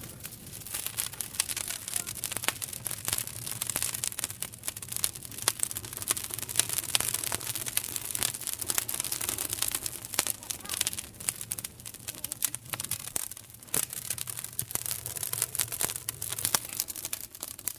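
Fire crackling: a dense, irregular run of sharp pops and snaps over a steady hiss.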